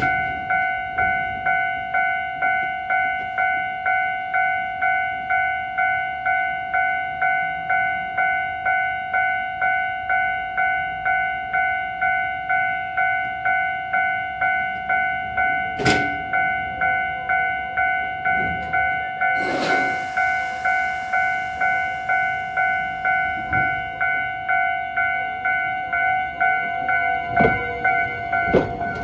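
Japanese level crossing warning alarm ringing steadily, an electronic two-tone clang about twice a second. A sharp knock comes about halfway through, a burst of hiss a few seconds later, and a few knocks near the end.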